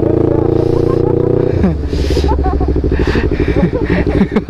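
Yamaha sport bike's engine running steadily under the rider. About one and a half seconds in, its note drops suddenly to a lower, throbbing run as the bike slows.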